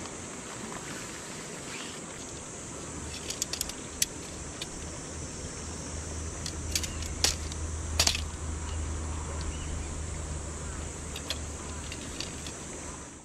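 Metal tarp poles clinking and clicking as their jointed sections are unfolded and fitted together: a scattering of sharp clinks, the loudest about seven and eight seconds in. A steady high insect buzz runs underneath, and a low hum comes in about three seconds in and fades near the end.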